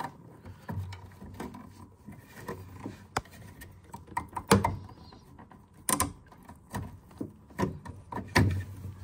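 Irregular small clicks and taps of fingers working the retaining clip off the hot water flow sensor on a Vaillant ecoTEC boiler, with a few sharper clicks in the middle. The flow sensor is being changed because it has failed.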